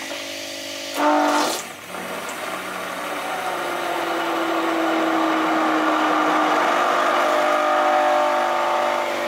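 Electric stick blender running in a plastic bucket of oil and lye solution, churning the raw soap batter to bring it to trace. A steady motor whir, briefly louder about a second in.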